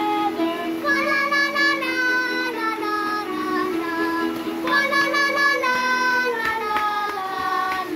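Children singing a Christmas carol together over instrumental backing music.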